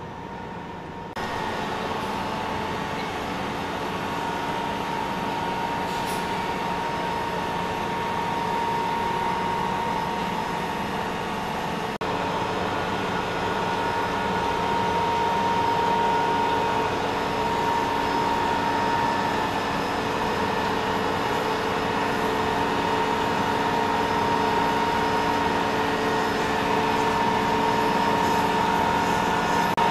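Heavy cargo-loading machinery running steadily, a noisy drone with a steady whine over it. It steps up about a second in and grows slowly louder.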